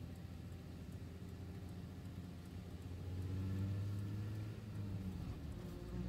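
Car engine and road noise heard from inside the cabin while driving. About halfway through it gets louder and the engine note rises slowly as the car accelerates.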